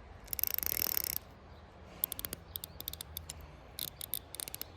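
Fishing reel clicking in quick runs, a longer burst near the start and shorter broken runs after, as slack line is wound back in after the line has snapped.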